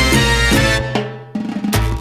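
Salsa music with drums and percussion. The band drops away briefly a little past halfway, then the drums come back in.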